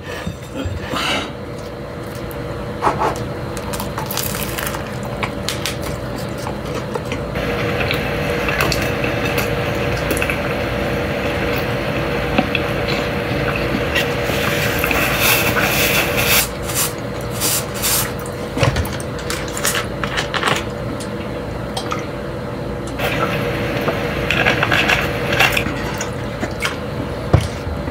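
A man eating a toasted chicken cheesesteak sandwich: chewing and wet mouth sounds over a steady hum. Near the end a plastic water bottle is handled and opened.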